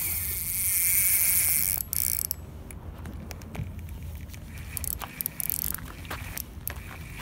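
Spinning-reel drag screaming as a hooked yellowtail kingfish runs line off against it, a steady high buzz for about two seconds. It then breaks into short, scattered clicks as the run eases.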